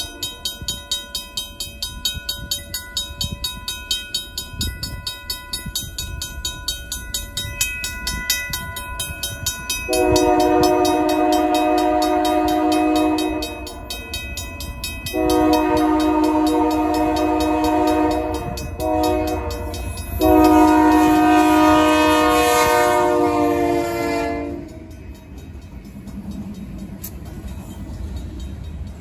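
A RACO mechanical crossing bell rings with rapid, even strokes. About a third of the way in, a Union Pacific diesel locomotive's air horn sounds the grade-crossing signal: two long blasts, a short one and a final long one. Near the end the horn stops and the locomotive's engine and wheels are heard passing beneath the bell.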